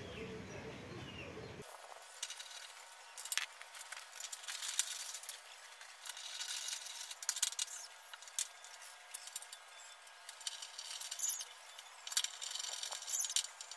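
Light metallic clinks, taps and rattles, irregular and scattered, as of small steel parts and tools being handled.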